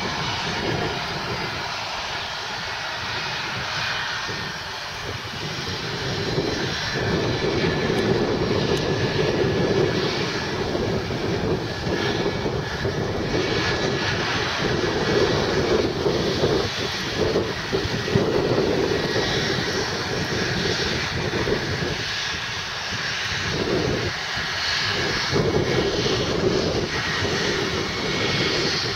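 Boeing 777's twin jet engines at takeoff thrust as the airliner rolls, lifts off and climbs away: a steady jet noise whose deep hum swells and fades.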